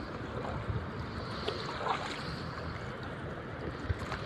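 Wading through shallow seawater: water sloshing and splashing around the legs, with a few sharper splashes.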